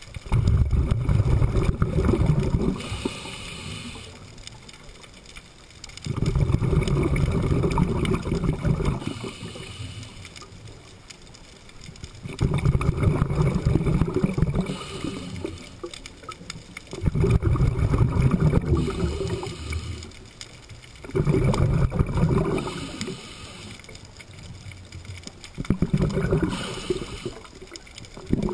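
Scuba diver breathing through a regulator underwater. Each breath is a short hiss on the inhale, then a long gurgling rush of exhaled bubbles, repeating about every four to five seconds.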